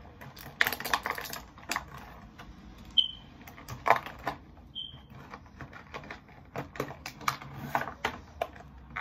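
Irregular clicks and rustles of plastic being handled: a vinyl action figure's parts being fitted and moved among its packaging. Two brief high squeaks, at about 3 s and about 5 s.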